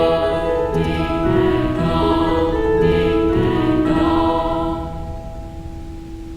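Slow background music of held, choir-like chords changing about once a second, fading after about five seconds to a single sustained note.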